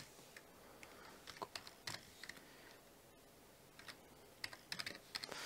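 Faint computer keyboard typing: a few scattered keystrokes, then a quicker run of them near the end.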